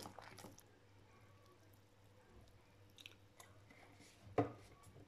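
Fork working minced meat in a ceramic bowl: faint, soft squishing with small ticks, and one sharp click about four and a half seconds in.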